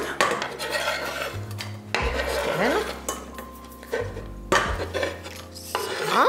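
A kitchen knife scraping diced onion off a wooden cutting board into a stainless steel pot, with a few sharp knocks and clinks of the knife and board against the pot.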